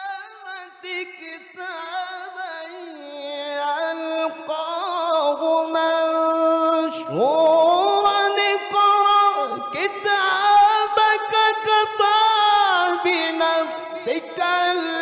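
A male Quran reciter sings a verse in the melodic tilawah style into a handheld microphone, holding long ornamented notes. About seven seconds in, his voice swoops sharply upward into a loud, sustained high phrase.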